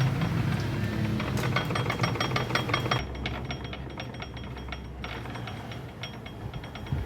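Ratchet wrench clicking in quick runs with a bright metallic ring, as bolts are worked on a motorcycle engine's top end.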